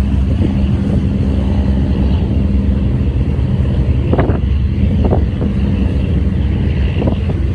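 Diesel engines of squid-fishing boats running as they head out, a steady low drone with a few short louder spots about four, five and seven seconds in.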